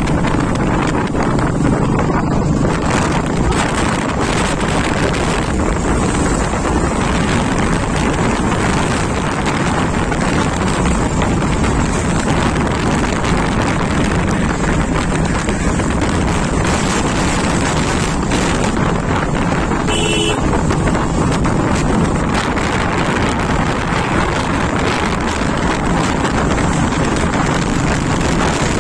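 Wind rushing over the microphone of a Royal Enfield Bullet single-cylinder motorcycle at highway speed, with the engine running underneath. A brief high beep sounds about twenty seconds in.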